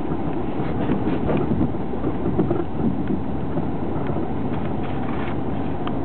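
Steady low road and engine noise of a car driving, heard from inside the cabin.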